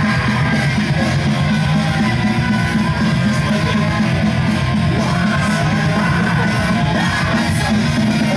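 Loud rock music with guitar and singing, with a steady beat.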